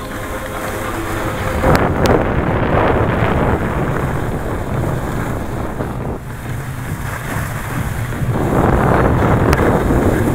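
Wind rushing over the microphone of a head-worn camera while sliding down an indoor snow slope, with the hiss of snow scraping underneath. It surges louder about two seconds in and again near the end, with a few sharp clicks.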